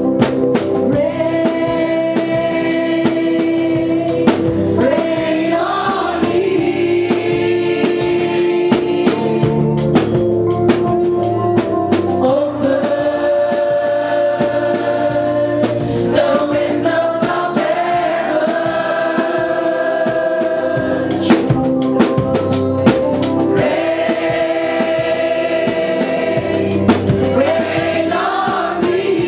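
Congregation singing a gospel worship song together in long held notes, each phrase ending in an upward glide, three phrases in all. A steady percussive beat of drums or claps runs under the singing.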